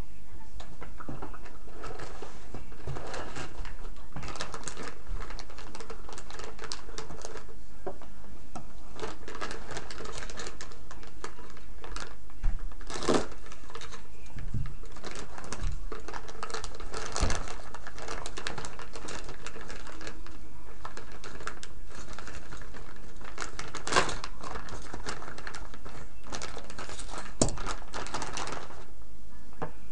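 Clear plastic packaging rustling and crinkling as rifle parts are unwrapped by hand, with a steady scatter of small clicks and several sharper knocks of the parts being handled.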